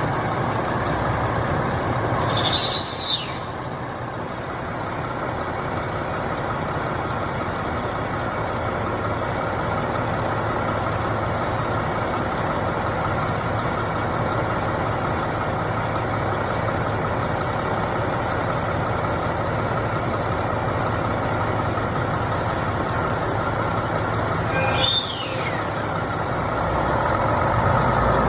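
An engine idling steadily, with a brief high squeal that rises and falls about three seconds in and again near the end.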